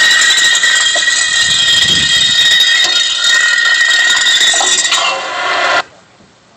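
A loud, distorted sound effect played over loudspeakers for a staged car crash: a high, grating sound made of several steady tones over a noisy hiss, which cuts off suddenly after about six seconds.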